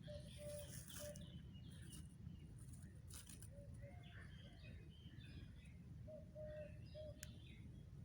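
Faint forest birdsong: scattered high chirps, and a lower call of short notes repeated in small groups, over a steady low rumble.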